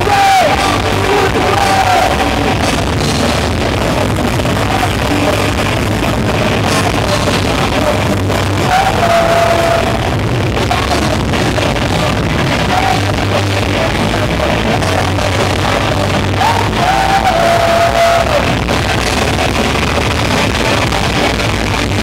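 Live rock band playing loudly: electric guitars and full band heard from the audience in a large hall, with a few long held notes that bend up into pitch.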